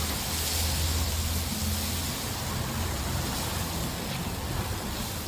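Chicken sizzling over a charcoal grill, a steady hiss, under a steady low rumble.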